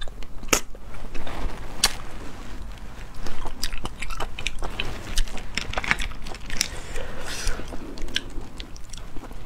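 Wet sucking, slurping and chewing as sea snail meat is sucked out of the shells, with many short sharp clicks and smacks.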